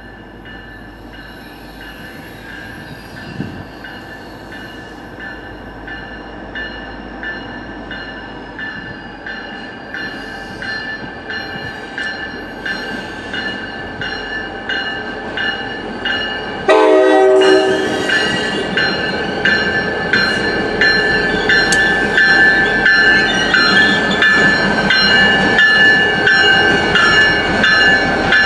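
Locomotives led by an NJ Transit GP40PH-2 diesel approach and pass slowly, growing steadily louder, with a bell ringing about once a second. About 17 seconds in there is a sudden short horn blast, and from then on the passing locomotive and wheels are loud.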